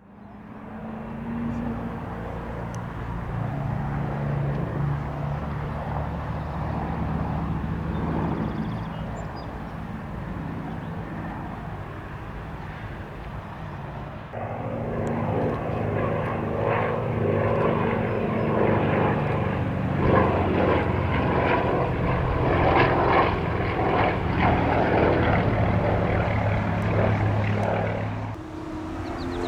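Aircraft engines running, with a steady low drone; about halfway through the sound cuts abruptly to a louder, rougher, pulsing engine noise, and changes abruptly again shortly before the end.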